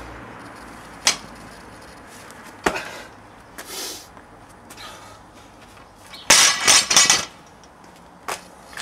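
Loaded barbell with rubber bumper plates knocking sharply twice during the snatches, then dropped onto a rubber mat about six seconds in, where it lands with a loud knock and rattles and bounces for about a second.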